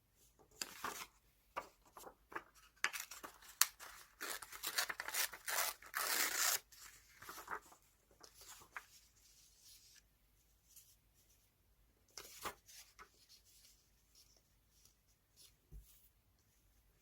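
Magazine paper being cut and torn for scrapbooking: a run of crisp snips and rips, loudest about four to six seconds in, then a few light paper rustles and taps.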